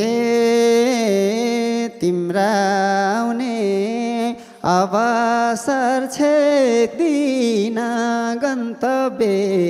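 A man singing a Nepali lok dohori melody into a microphone, in long held phrases that waver and glide in pitch, with short breaks between them.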